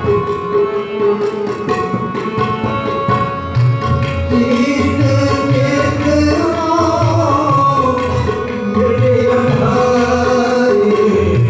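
Sikh kirtan: two harmoniums holding a steady reedy accompaniment under busy tabla strokes, with a man's voice coming in singing about four seconds in.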